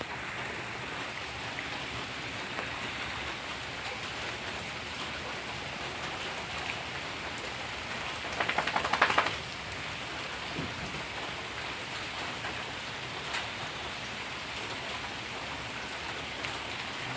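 Steady rain falling. About eight seconds in comes a brief burst of rapid beats, the loudest sound here.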